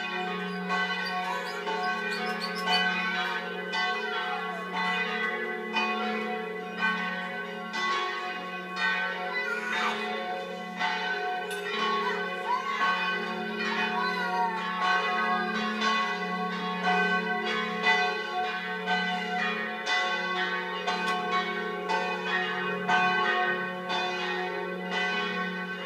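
Several church bells rung together in a continuous, very loud peal, strokes following one another about every second or less over a sustained low hum.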